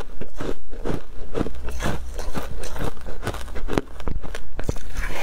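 Ice coated in matcha powder being bitten and chewed: loud, rapid, irregular crunches and cracks.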